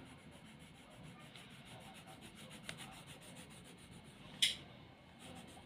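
Apsara graphite pencil rubbing on paper in quick back-and-forth shading strokes, a soft steady scratching. A single sharp tap stands out a little after four seconds in.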